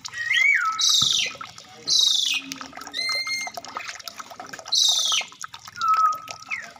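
Birds calling: three loud, quick downward-sweeping calls with whistled notes in between, over a faint scatter of clicks.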